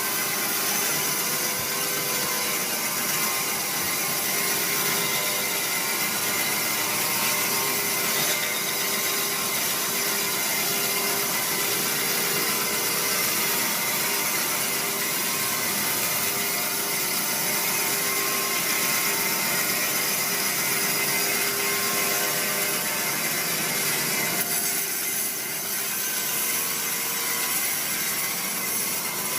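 Sawmill saw running through a large teak log, a steady dense cutting noise with a faint hum under it.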